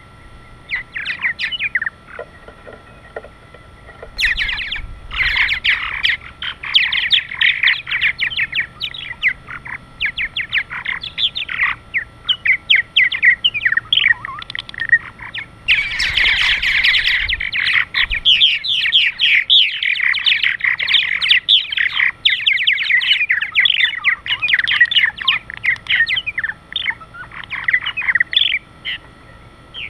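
A flock of purple martins calling at close range: a dense run of short chirps and gurgling chatter that starts sparse and fills in about four seconds in. There is a louder, rougher patch around the middle.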